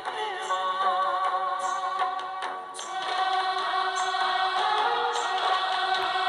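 Background music with sustained singing voices, several held notes sounding together like a choir.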